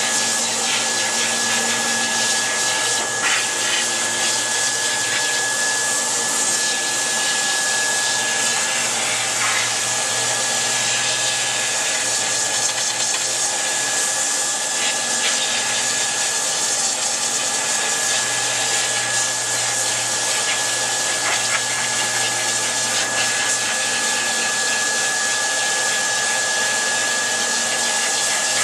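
Pet grooming dryer blowing steadily: a constant rush of air with a steady high whine.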